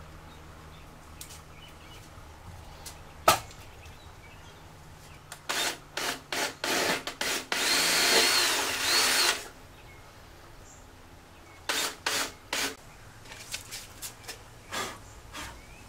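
Cordless drill drilling into a fiberglass-patched lawnmower deck to open up the engine mounting holes. It runs in several short bursts about five seconds in, then steadily for about two seconds, with more short bursts near the end. There is a single sharp knock about three seconds in.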